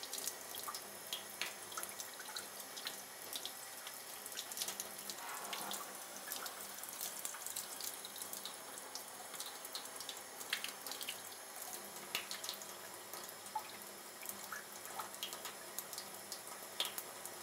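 Thin stream of tap water running steadily over gloved hands and a snake into a sink, faint, with many small splashes and drips.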